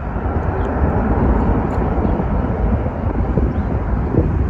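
Distant jet airliner's engine noise as it rolls out along the runway after landing, a steady roar mixed with wind buffeting the microphone.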